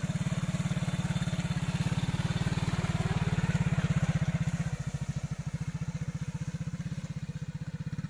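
Small motorcycle engine running with a rapid, even putter, easing down a little under five seconds in.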